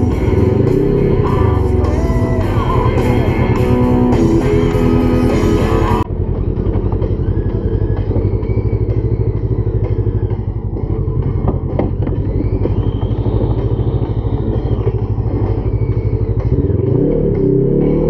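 Rock music with guitar, with an off-road vehicle engine running underneath. About six seconds in, the sound changes abruptly and turns duller, and the engine's steady pulsing comes to the fore.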